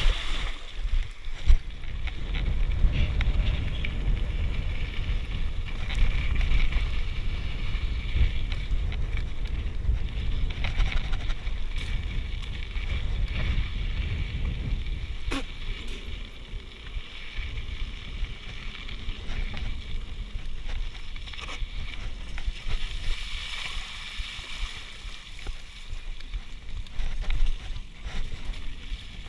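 Mountain bike rolling over a rocky dirt trail, with tyre and chassis noise and wind buffeting the handlebar-mounted camera's microphone, the wind rumble heaviest in the first half. At the very start the front wheel splashes through water, and a single sharp knock comes about halfway through.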